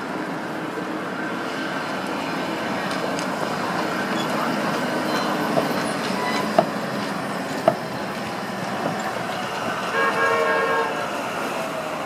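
Translohr rubber-tyred guided tram passing along a street, heard over steady road-traffic noise. There are two sharp clicks a second apart midway, and a horn sounds briefly about ten seconds in.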